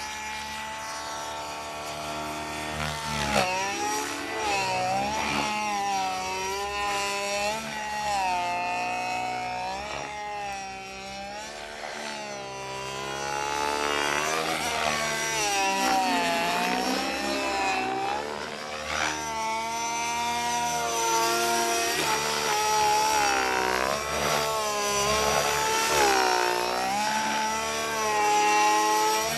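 Century Radikal G30 radio-controlled helicopter in flight, its HWC 3D Extreme Pro 29cc two-stroke gasoline engine and rotors running. The engine note repeatedly dips and rises as the load changes through manoeuvres.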